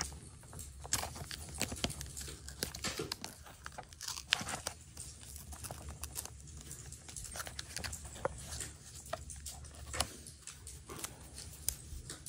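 Plastic packaging crinkling and tearing, with many irregular small clicks, as a new GoPro camera is worked free of its packaging by hand.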